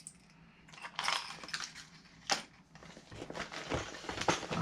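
Fishing lures and their plastic packaging being handled: irregular crinkling and clicks, with one sharp click a little past two seconds in.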